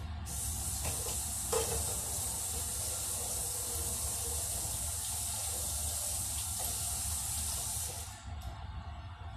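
Kitchen tap running in a steady stream, turned off about eight seconds in, with a single knock about a second and a half in.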